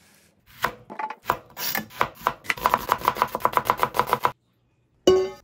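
Kitchen knife chopping vegetables, an onion among them, on a plastic cutting board. A few scattered cuts give way to a quick run of about five or six chops a second that stops abruptly. Near the end comes one short, loud ringing knock.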